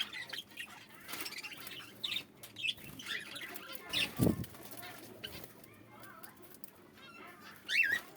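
Several kept birds calling, with many short, high chirps and squawks; a louder, lower call comes about four seconds in and a wavering call near the end.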